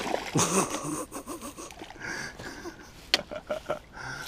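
A small pike thrashing and splashing at the water's surface as it is scooped into a landing net, with water sloshing. About three seconds in comes a sharp click, then a few quick ticks.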